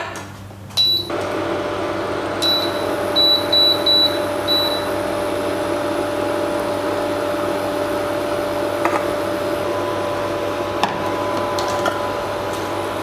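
Induction cooktop switched on: a beep, then a run of about six short beeps as its setting is changed, while its fan and coil hum run steadily underneath. A few light knocks come later.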